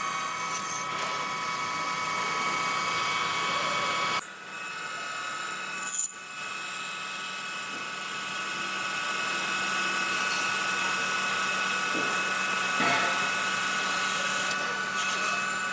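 Metal lathe running with a steady machine whine made of several high held tones, broken by a few short clicks. The sound changes abruptly about four and six seconds in.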